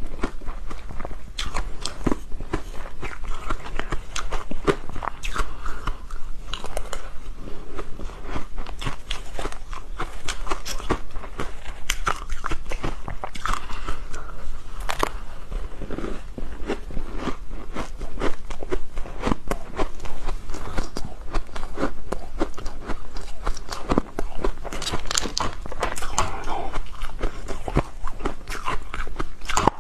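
A person biting and chewing hard frozen matcha ice: a continuous run of sharp crunches and cracks.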